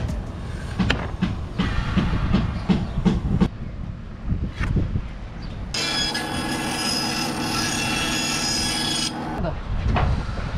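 Wooden timbers and a plywood template knocked and shifted about, then a band saw running and cutting plywood for about three seconds with a steady whine that starts and stops abruptly, followed by more wooden knocks.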